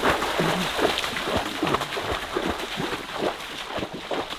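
Splashing footsteps of a person wading fast through shallow water, a rapid irregular run of splashes and sloshes.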